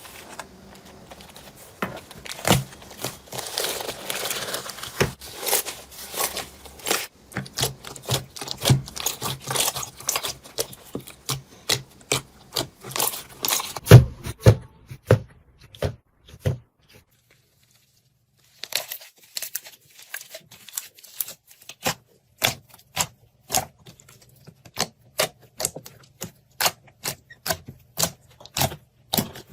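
Slime being squeezed and pressed by hand, making sharp crackling pops and clicks. There is a brief hissy squelch early on, a short pause just past the middle, and then steady pops about two a second.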